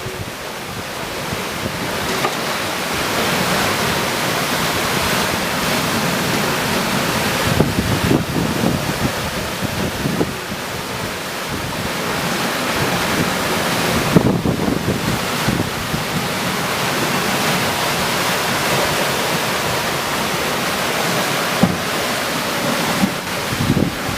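Wind and rushing water aboard a Maverick 400 sailing catamaran under sail: a steady hiss of water and wind, with gusts buffeting the microphone now and then.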